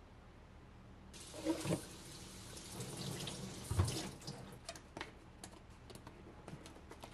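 Kitchen faucet running water into a plastic bottle, starting about a second in and shutting off about four seconds in, with a couple of knocks of the bottle in the sink. Small clicks and handling sounds follow as the foaming pump top goes back on.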